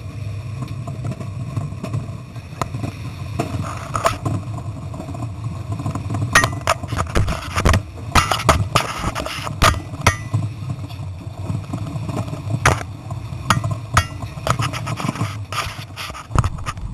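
A Bowler Tomcat's 3.5-litre V8 running, heard from inside the cab as a steady low drone. Over it come loud, irregular clicks, knocks and rattles, thickest from about six seconds in.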